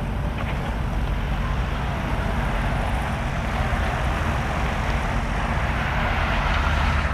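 Steady road and engine noise of a car driving, heard from inside the cabin, with a low hum under a broad rushing noise that swells slightly about halfway through.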